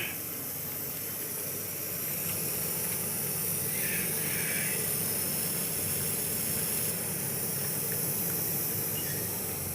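Steady hiss of gas blowing through a refrigerator's refrigerant lines while the system and its filter are being flushed. Two short chirps about four seconds in.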